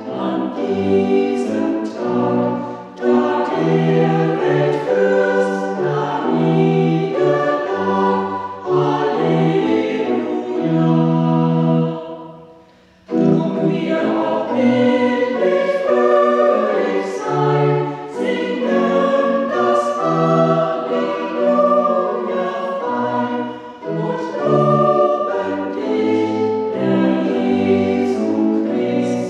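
Small mixed choir of sopranos, altos, tenors and basses singing a German hymn with church organ accompaniment. The music breaks off briefly about twelve seconds in, between verses, then resumes.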